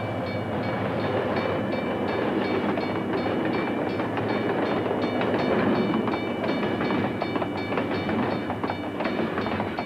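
Freight cars rolling through hump-yard car retarders, the retarders gripping the wheels with a steady high-pitched metallic squeal over a rumble with many rapid clicks.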